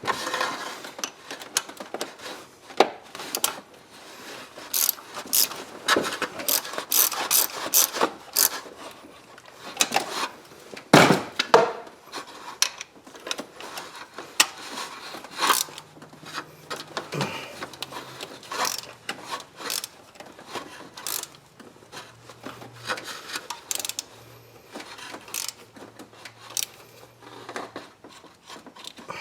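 Hand tools and engine parts being handled during a spark plug change: irregular clicks, scrapes and knocks, with some quick runs of clicking, as of a ratchet.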